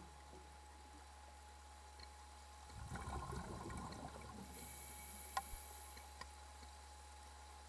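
Faint underwater ambience: a steady low hum, a soft rustling stretch about three seconds in, and a couple of sharp clicks near the end.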